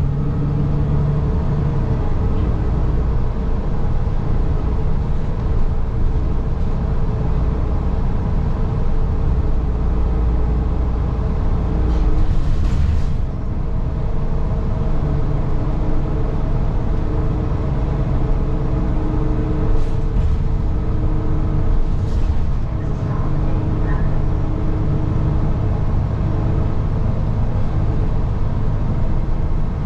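City transit bus heard from inside while under way: a steady engine and drivetrain hum over a low road rumble, with a few short hisses.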